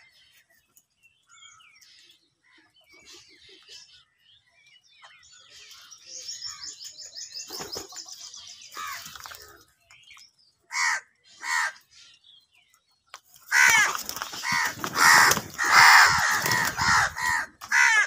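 House crows squabbling over food: two loud caws about eleven seconds in, then a few seconds of loud, overlapping cawing and wing flapping as two of them fight. Faint chirps of small birds and a rapid high trill come before it.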